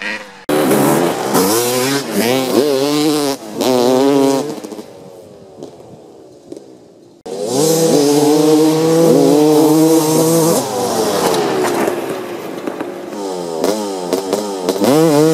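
Motocross dirt bike engines revving hard in repeated bursts, pitch climbing and dropping as the throttle is worked and the bikes shift up. About seven seconds in, two bikes come in loud and run high together, and one passes close near the end.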